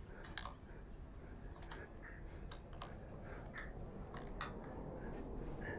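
Light, irregular clicks and taps as a handlebar-mounted control unit's clamp is snugged and nudged into line on an e-bike handlebar, about a dozen small sharp ticks over a low background hiss.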